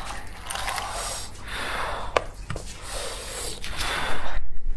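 Gloved hands pulling apart a large sauce-coated beef rib: sticky, wet tearing and squelching sounds with a few sharp clicks, mixed with breaths close to the microphone. It grows louder near the end.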